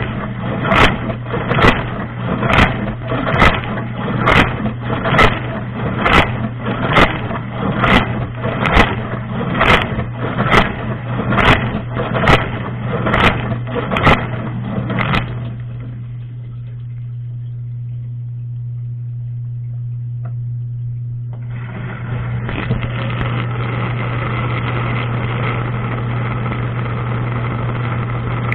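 Dishwasher running, heard from inside the tub: a steady motor hum under sprayed water that strikes in regular splashes about once a second from the rotating spray arm. About halfway the spray stops, leaving the pump motor's hum with a single click, and a few seconds later an even rush of spray starts again.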